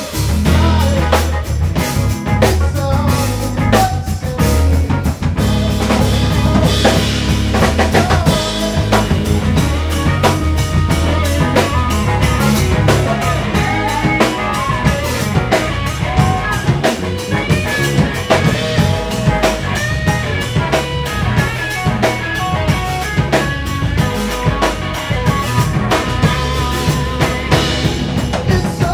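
Live rock band music: an electric guitar playing melodic lines over a full drum kit with snare and bass drum hits, in an instrumental passage.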